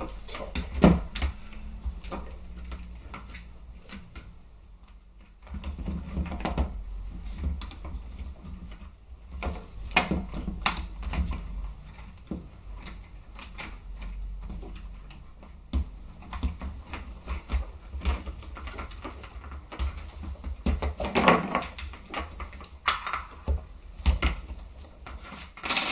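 Hands working on an airsoft rifle's internals, routing wiring and handling its plastic and metal parts: irregular clicks, taps and rustles over a low background hum, with a brief lull about four seconds in.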